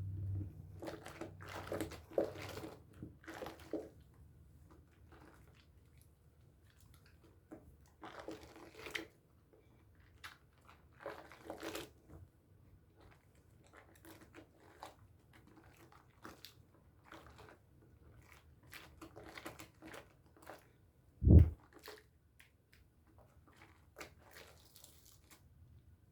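A bar of Dove soap being lathered in wet hands, with wet squishing and crackling lather in bursts that come and go. One loud, deep thump a little after the 21-second mark.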